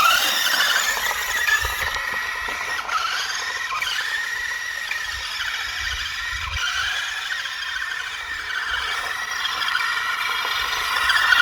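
Electric drive of a CC-01 radio-controlled car whining as it runs, a high whine that rises and falls a little with the car's speed.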